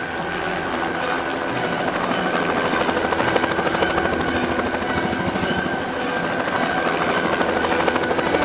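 Helicopter in flight: fast, even rotor-blade chop over a steady high whine.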